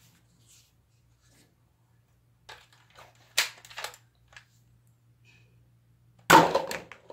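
Nerf toy blaster handled with a few sharp plastic clicks, then one sudden loud shot near the end followed briefly by a clatter of clear plastic cups being knocked down.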